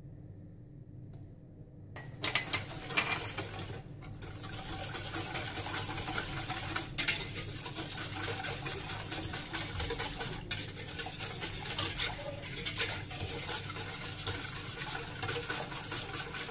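A utensil stirring milk in a stainless steel saucepan, scraping and clinking against the pan, starting about two seconds in. The cold milk, sugar and vanilla are being mixed with cornstarch before the pan goes on the heat.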